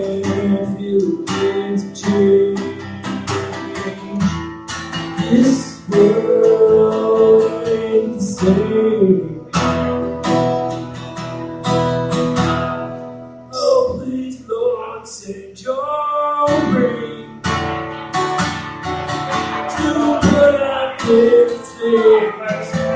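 Acoustic guitar strummed in a steady rhythm, with a man singing along to it.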